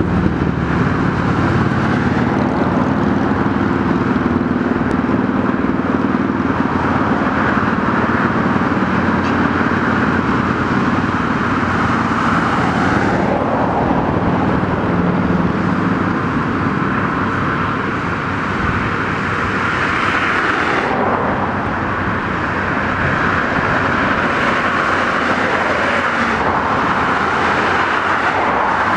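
Road traffic: cars driving past on a multi-lane road, a steady wash of tyre and engine noise that swells and shifts as vehicles go by.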